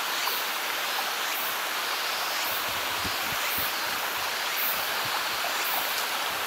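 Steady rush of flowing water from a waterfall and stream. A few soft low thumps come about halfway through.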